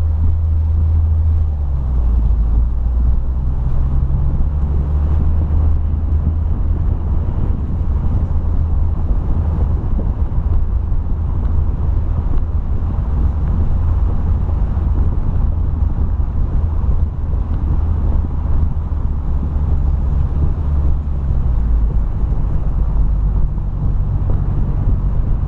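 Nissan 350Z's 3.5-litre V6 running at a steady, moderate pace, under a low drone of tyre and road noise from a rough concrete road.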